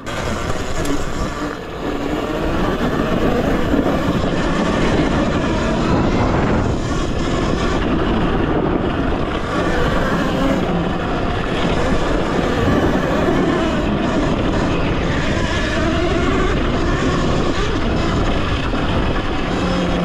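Talaria Sting electric dirt bike being ridden off-road: a steady loud rush of riding noise with a faint motor whine that rises and falls as the speed changes.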